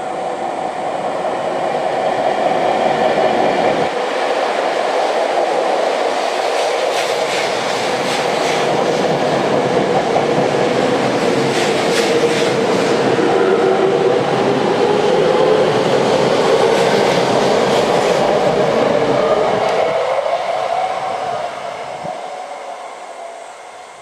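Tokyo Metro 10000 series ten-car electric train passing through a station at speed without stopping: a loud rush of wheels on rail with a whine that wavers in pitch, and a few sharp clicks over rail joints midway. It builds over the first couple of seconds and fades away over the last few.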